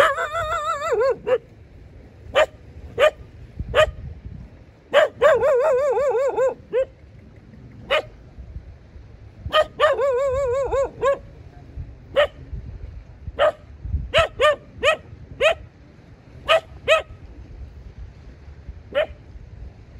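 A dog barking: short, sharp barks come singly and in quick runs, and three longer, wavering yowls come at the start, about five seconds in and about ten seconds in.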